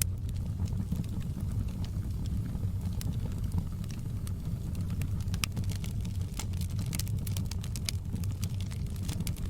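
Wood fire burning in a fireplace: a steady low rumble of the flames with sharp crackles and pops from the logs, coming thicker in the second half.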